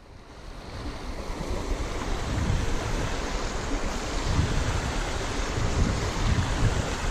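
Shallow stream running over rocks, with wind buffeting the microphone in low gusts; the sound fades in over the first couple of seconds and then holds steady.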